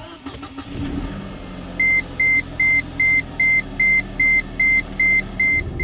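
Mercedes C230 instrument-cluster warning chime beeping rapidly, about a dozen short, evenly spaced beeps at two or three a second, over the engine idling. The chime goes with an 'ESP unavailable' warning, shown because the newly fitted wheel speed sensor has not yet recalibrated.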